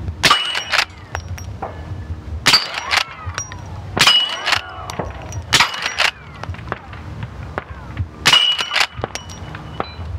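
Suppressed Marlin Dark lever-action .44 Magnum rifle firing 400-grain subsonic rounds, about five shots a second or two apart. Each report is followed by a sharp crack and ringing from the steel plates being hit.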